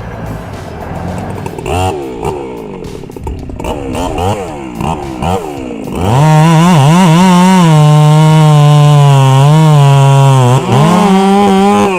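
Chainsaw engine revving up and down in quick blips, then held at full throttle from about six seconds in, its pitch sagging slightly under the load of the cut and dipping briefly near the end.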